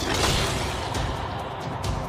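Ring-entrance music playing loud and continuous, with a noisy swell in the high end about a quarter of a second in.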